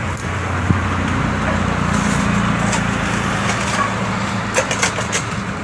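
An engine running steadily with a low hum. Over it come a few sharp knocks near the end, from a steel digging bar working the soil of the trench.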